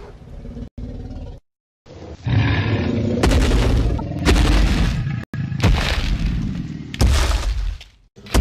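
Edited soundtrack of loud rumbling, roaring sound effects in short bursts of about a second each, every one starting and cutting off abruptly, after a brief silence.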